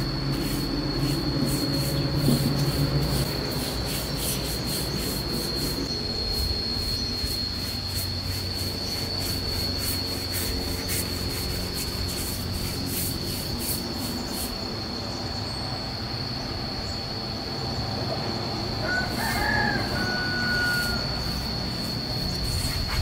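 A rooster crowing once, about nineteen to twenty-one seconds in, over a steady high-pitched insect drone.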